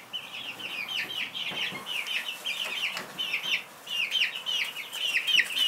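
A group of young chicks peeping: a continuous run of short, high cheeps, mostly falling in pitch, several a second and overlapping.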